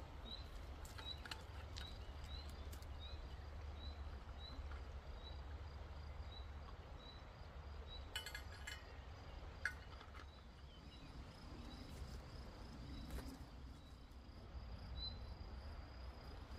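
Quiet riverside ambience: a short, high animal chirp repeats every half second or so and stops near the end, over a steady low rumble. A few light clicks and a brief metallic clinking come about halfway through.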